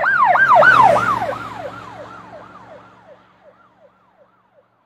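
Emergency-vehicle siren in a fast yelp, about three rising-and-falling sweeps a second, loud at first and fading away over about four seconds.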